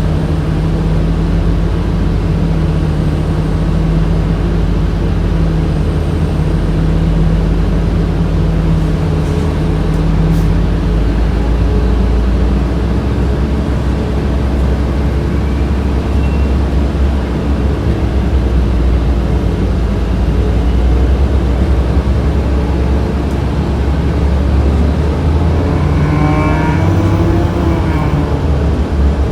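Cabin sound of a 2007 Orion VII diesel transit bus under way: the HVAC system's steady blower hum over the engine's low drone and road rumble. The drone changes in pitch about eleven seconds in, as the bus changes speed.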